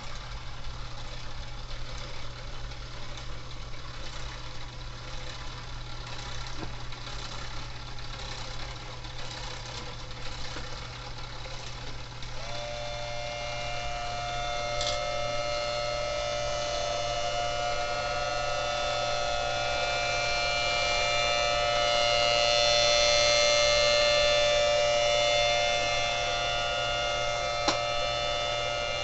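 3D-printed mini Thunderbolt tornado siren under test. Its motor and blower run with a steady mechanical whir, then about twelve seconds in the siren sounds a steady chord of two tones, with a third sliding up to join them. The siren grows louder to a peak past twenty seconds, then eases slightly, and a sharp click comes near the end.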